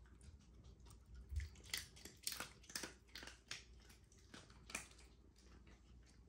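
Shiba Inu eating dry kibble: a run of irregular, crisp crunches starting about a second in and stopping a little before the end, with a low bump as the crunching begins.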